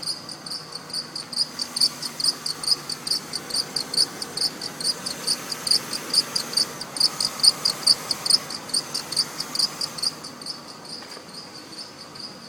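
Mercedes-Benz accessory-belt pulley squeaking in a fast, even chirp, about five a second, on a cold morning start, weakening near the end. The owner takes it for a weak belt tensioner or idler pulley.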